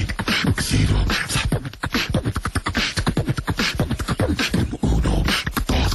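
A voice beatboxing: a fast, continuous run of mouth-made clicks, hisses and low thumps with bits of pitched voice, stopping right at the end.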